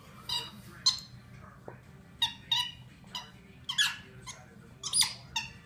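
A Norwich terrier giving about a dozen short, high-pitched whimpers in irregular clusters while playing.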